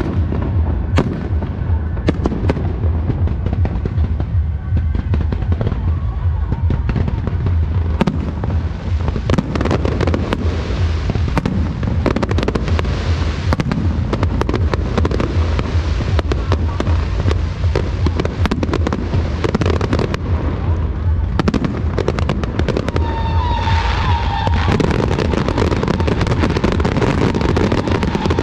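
Aerial fireworks display: a continuous barrage of bursts and crackling over a deep rumble, getting denser and fuller toward the finale near the end.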